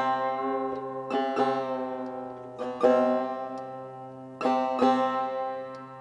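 Setar, the Persian long-necked lute, plucked in slow, sparse phrases: small groups of notes struck every second or two, each left to ring and fade over a steady low sustained tone.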